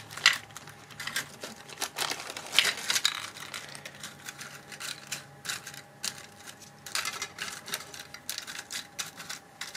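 Plastic nail tips clicking and tapping as they are handled and sorted by size into a plastic storage container, in a run of irregular light clicks.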